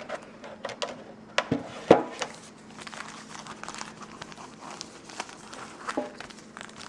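Trading cards and foil booster packs being handled, with light crinkling and scattered small clicks, and a sharp tap about two seconds in.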